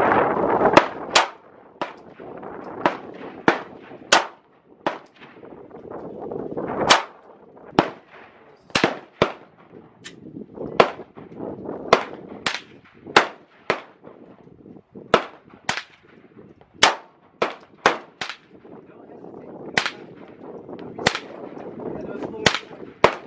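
Semi-automatic pistol fired shot after shot, about one to two shots a second with uneven gaps, some shots louder and some fainter. Wind rushes on the microphone between the shots.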